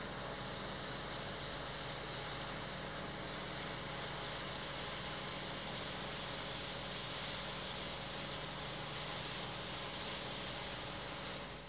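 Claas Dominator combine harvester working through standing grain: its engine and threshing machinery make a steady, even running noise with a strong hiss, which fades just before the end.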